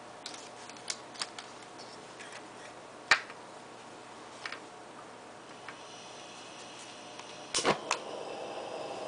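Scattered sharp clicks and taps, then gas starts hissing through the Primus EtaPower MF stove's valve about six seconds in. A quick cluster of clicks near the end as the burner is lit, after which the hiss grows louder.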